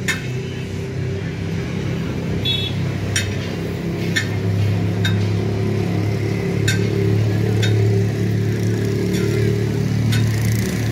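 Engine of a Bedford truck, re-powered with a Nissan 24-valve engine, idling steadily. Sharp metallic clicks come roughly once a second over the running.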